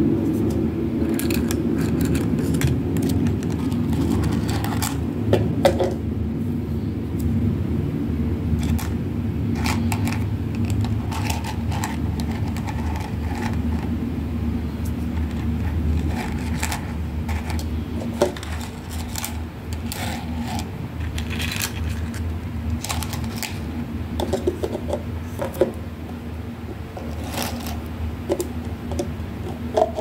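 Plastic toy tea set pieces clicking and clattering as they are handled: toy spoons lifted out of plastic cups and cups and teapot knocked against each other, in many short, separate taps. A steady low hum runs underneath.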